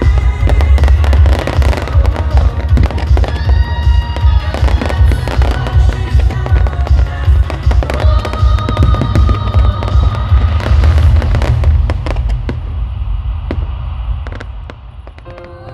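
Professional fireworks display: a rapid barrage of bangs and crackling from shells and comets, with music playing underneath. The barrage thins out and grows quieter over the last few seconds.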